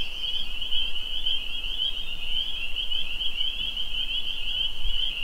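A chorus of spring peepers, many high peeping calls overlapping into one steady, unbroken sound.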